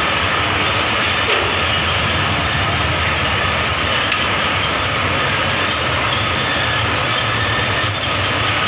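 Steady, loud mechanical din of rubber-glove factory production machinery, an unbroken rumble and hiss with faint high squeaks here and there.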